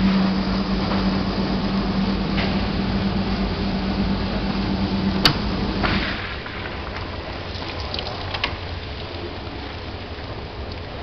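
Amika 6XL commercial dishwasher running its wash: a steady pump hum with spraying water. The hum stops with a click about six seconds in, leaving quieter water noise and a few light clicks.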